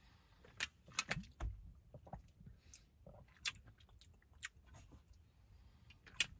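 Quiet mouth sounds of drinking a protein shake from a plastic shaker bottle: swallows and lip smacks, with a scatter of small clicks.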